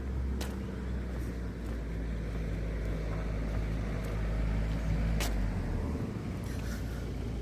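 Low, steady rumble of a motor vehicle's engine that drops away about six seconds in, with two sharp clicks.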